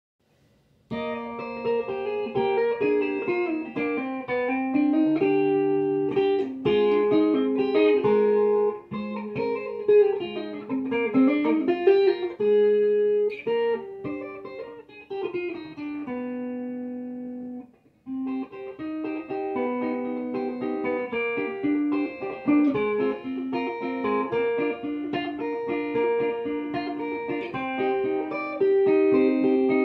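Electric guitar fingerpicked in an improvised waltz: melodic single-note lines over chords. It starts about a second in; about halfway through a chord is left to ring and die away, and after a brief gap the playing picks up again.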